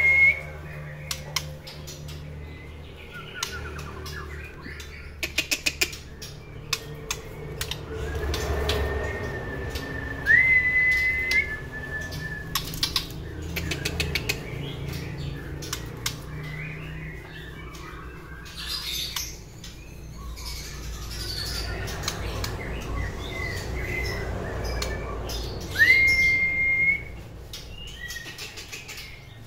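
Young white-rumped shama in a cage giving three whistled calls, each sweeping up and then holding level for about a second. Scattered clicks and wing flutters come between the calls as the bird moves about the cage.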